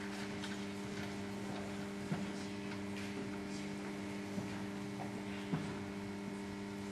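Steady electrical mains hum with a faint hiss, and a few faint short knocks about two, four and five and a half seconds in.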